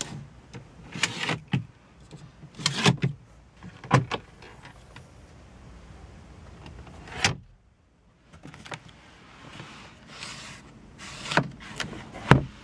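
Plastic clicks and knocks of a BMW 335i's interior trim being worked by hand: the pop-out cup holder, the glove box lid and the sun visor. Half a dozen separate sharp clicks, the loudest near the end as the visor is flipped.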